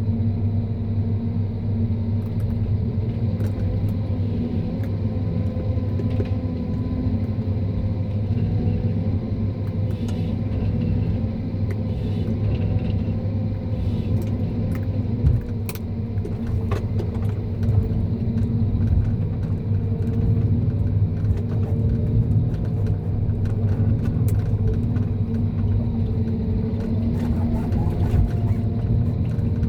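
John Deere 1270G harvester's diesel engine running steadily under load, a deep drone, with scattered light cracks and one sharp crack about fifteen seconds in.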